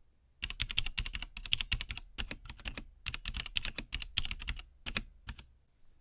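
Typing on a mechanical keyboard: a fast, continuous run of key clicks that starts shortly in and stops just before the end.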